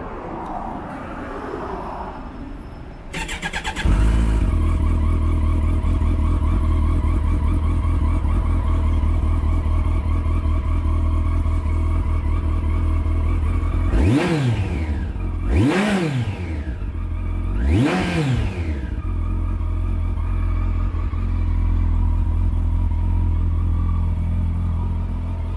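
Kawasaki 1400GTR's 1,352 cc inline-four with an Akrapovič muffler, turned over briefly by the starter and catching about four seconds in, then idling steadily. Near the middle it is blipped three times, each rev rising and falling back to idle.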